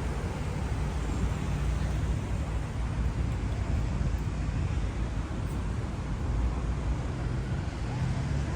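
City street traffic: a steady low rumble of vehicles running past, with no single event standing out.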